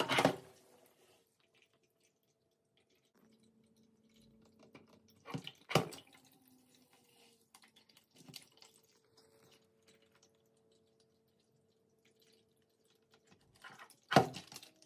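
Clear plastic pet water fountain being shoved and knocked about by a cat: loud plastic clattering at the start, about five seconds in, and near the end. Between the knocks, water drips and trickles in the fountain over a faint steady hum.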